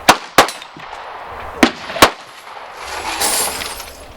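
Handgun shots at an outdoor range: four sharp shots in two quick pairs, the pairs about a second and a half apart.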